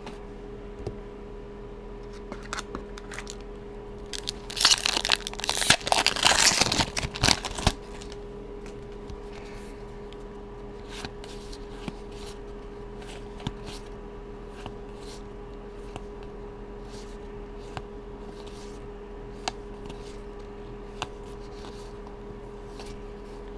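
Foil wrapper of a Magic: The Gathering booster pack crinkling and tearing open for about three seconds, starting roughly four and a half seconds in. Afterwards, soft clicks and slides of the cards as they are flipped through one by one.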